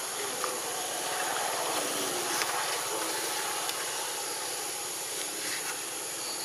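Steady outdoor background hiss, with a few faint clicks.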